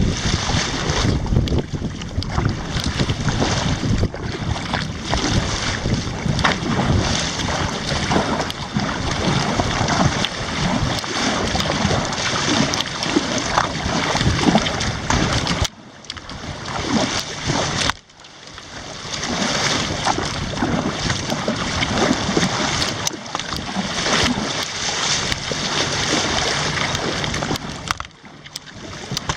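Kayak on open sea water: paddle splashes and water against the hull under heavy wind noise on the microphone. The sound drops out abruptly twice, about halfway and near the end.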